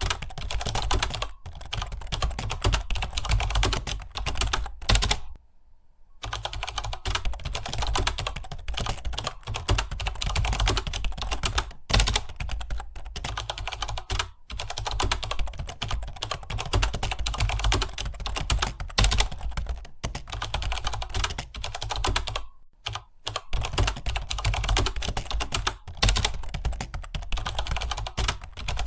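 Fast, continuous typing on a computer keyboard, a rapid stream of keystrokes, pausing briefly about five seconds in and again a little past twenty seconds.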